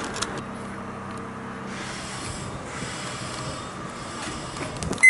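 Steady background hum of a small railway station with a few soft clicks, ending in one loud, short electronic beep near the end.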